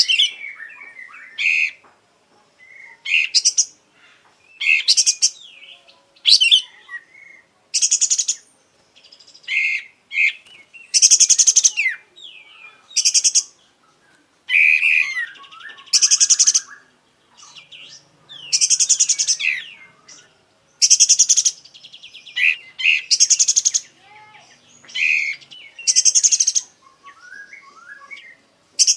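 Kapas tembak songbird singing in full voice, showing off its repertoire. Loud, fast, high rattling trills about a second long, repeated a dozen or so times, alternate with shorter chirps and slurred whistles.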